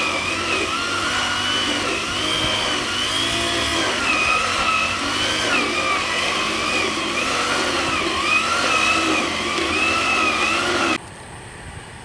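Backpack brush cutter's small engine, refitted with a homemade paddy-weeder head, running under load as it churns through tall weeds between rice rows. Its note rises and falls about once a second, then cuts off abruptly near the end.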